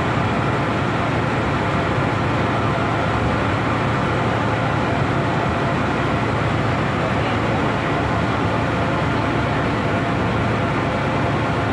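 Ferry boat's engine running steadily with a low, even drone under the rush of the crossing.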